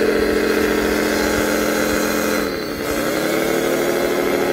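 Radio-controlled scale wheel loader's motor running with a steady pitched drone as it digs into a sand pile and fills its bucket. The pitch sags about two and a half seconds in, then climbs back.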